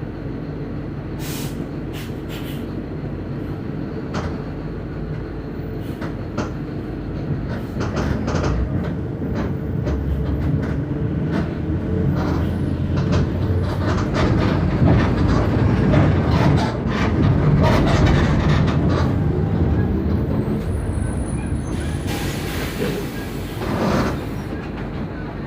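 Mercedes-Benz OF 1519 bus diesel engine under way, pulling harder and louder through the middle and then easing off, with body rattles and clicks throughout. A short hiss near the end.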